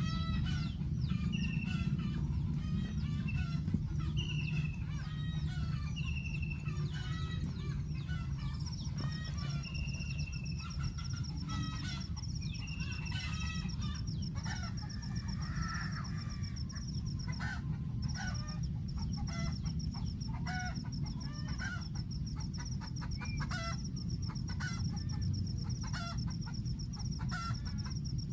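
Birds calling in many short, varied chirps and notes. From about nine seconds in, a steady high insect-like trill joins them over a constant low rumble.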